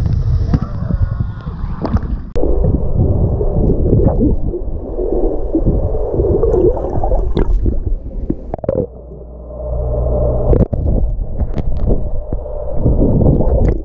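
Muffled underwater sound picked up by a submerged camera in a pool: low gurgling and bubbling with scattered sharp clicks and knocks.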